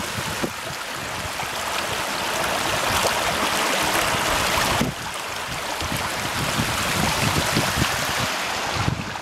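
Small mountain creek babbling and splashing over rock slabs, a steady rushing noise; it dips briefly about five seconds in, then carries on.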